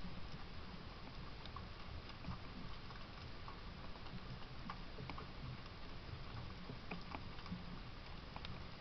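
Squirrel's claws gripping and shifting on a round squirrel shield and tree bark: scattered light ticks and taps at irregular intervals over a faint steady hiss.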